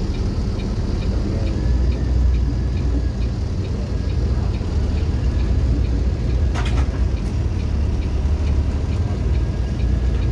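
Vehicle engine running steadily, heard from inside the cab while driving slowly, with a light regular ticking about three times a second. A short sharp noise about two-thirds of the way in.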